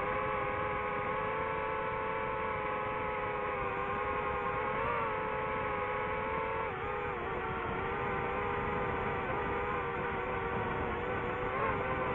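DJI FPV drone's motors and propellers whining steadily, the pitch shifting a little with throttle through the turns, with a brief drop about seven seconds in.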